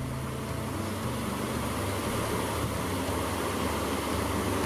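Steady rushing of a fast mountain creek flowing past a logjam.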